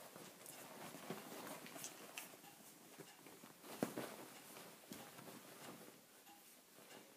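Faint scuffling and fabric rustling of five-week-old puppies scrambling and tussling on a duvet, with scattered soft clicks and thumps and one sharper knock about four seconds in.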